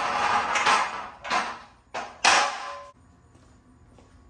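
Steel QuickJack lift frames being set down and shifted on a concrete garage floor: a few clanks and scrapes, the sharpest a little over two seconds in.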